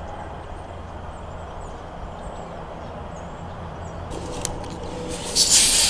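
Outdoor ambience: a steady low rumble with faint bird chirps, then a short burst of hiss near the end.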